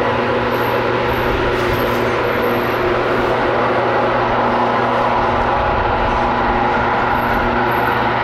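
Jet engine noise from an Airbus A330-243's Rolls-Royce Trent 700 turbofans as it climbs out after takeoff: a steady noise with a constant low hum under it.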